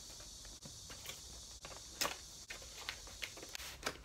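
Cardboard retail box being handled and worked open: scattered light taps, clicks and scrapes of fingers on the card, with a sharper knock about two seconds in.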